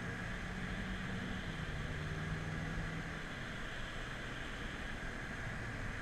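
BMW F10 M5's twin-turbo V8, heard from inside the cabin over tyre and road noise. The engine note steps down in pitch about a second and a half in and drops lower again after about three seconds as the car slows for a corner.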